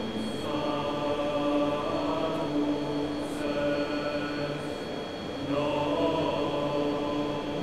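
Droning, chant-like soundtrack: sustained, held tones that swell in three phrases of about a second and a half each, over a steady high-pitched hum.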